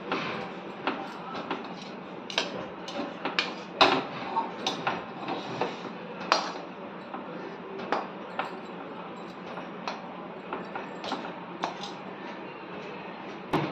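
Slotted metal spatula scraping and knocking against a metal kadhai while stirring a thick, sticky chana dal and sugar-syrup mixture, with irregular clinks and scrapes.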